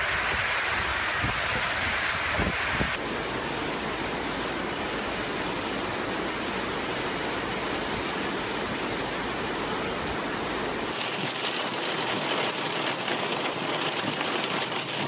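Heavy rain: a steady rush of rain noise, with wind buffeting the microphone for the first few seconds. The sound changes abruptly about three seconds in and again near the end, where the rain is heard from inside a car, beating on the windscreen.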